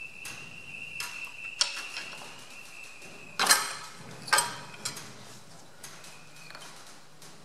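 Scattered metallic clicks and knocks, two louder ones around the middle, as a diesel fuel injector is handled and worked out of the cylinder head of a Perkins AD3.152 three-cylinder engine. A faint, steady high whine stops a little after three seconds in.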